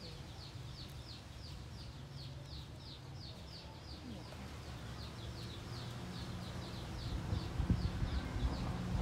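A bird chirping in a steady run of short, high, downward-sliding notes, about three a second, over a low steady hum; a few soft low knocks near the end.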